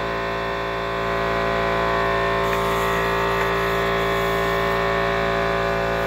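Air compressor running with a steady, even hum.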